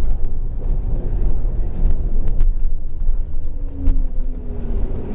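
City bus running, heard from inside the cabin: a steady low rumble of engine and road with a few sharp rattles, and a whine that falls slightly in pitch from about three and a half seconds in.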